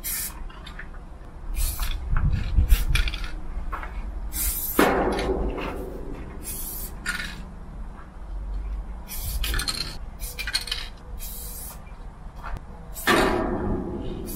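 Aerosol spray-paint can hissing in a string of short bursts, with a couple of longer, fuller sprays about five seconds in and near the end. A low rumble comes about two seconds in.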